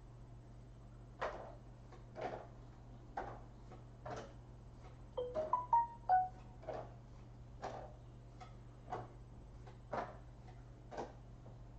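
Sharp ticks about once a second over a steady low hum, with a brief run of short high beeping notes at different pitches about five seconds in.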